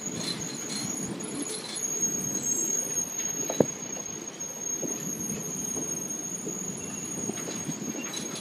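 Circus train passenger cars rolling past, the steel wheels giving a steady high squeal over a low rumble, with one sharp clank about three and a half seconds in.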